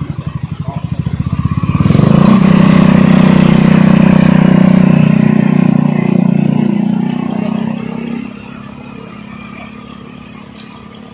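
Motor scooter's small engine idling close by, then opening up about two seconds in as the scooter pulls away from a standstill. It runs loud and steady, then fades quickly near the end as it rides off.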